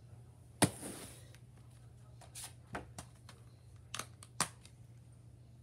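A plastic Blu-ray case being handled and opened: a sharp snap a little over half a second in with a short rustle after it, then a string of lighter plastic clicks and taps.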